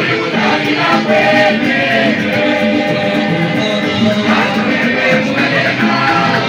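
Choir of mixed voices singing a song together with instrumental accompaniment.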